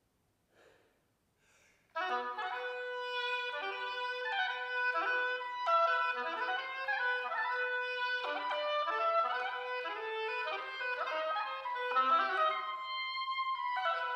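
Solo oboe playing a fast passage of many short, quick notes that leap between low and high pitches, coming in after about two seconds of near silence.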